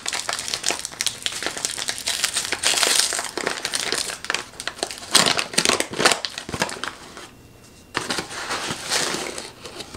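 Paper sugar bag being unrolled and opened by hand, its stiff paper crinkling and crackling, with a quieter spell about seven seconds in.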